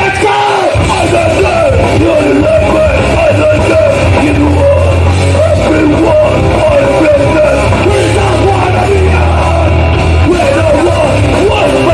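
Live hardcore band playing loud, with distorted guitars and drums under shouted vocals. The bass drops out for a moment just after the start, then comes back in.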